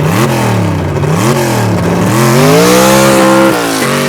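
Ford Mustang Mach 1's 4.6-litre V8 engine revving: two quick blips, then a longer climb held high that drops back near the end and settles steady.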